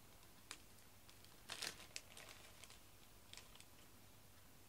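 Near silence, broken by a few faint crinkles and clicks of something being handled. The loudest come about a second and a half in, with smaller ones after three seconds.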